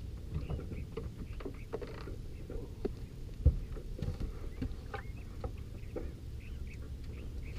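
Scattered knocks and clatter on a bass boat while two anglers fight fish, over a steady low rumble of water and wind around the boat. One sharp thump stands out about three and a half seconds in.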